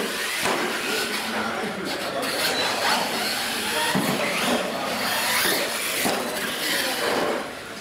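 Losi LMT radio-controlled monster trucks racing, their brushless electric motors whining up and down in pitch as they accelerate and ease off. Their tyres scrub on the floor and they knock against the ramps a few times as they jump.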